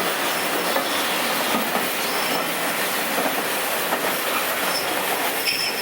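A railway train running on the track: a steady rushing rumble with faint wheel clicks, and a few brief high-pitched wheel squeals from about two seconds in.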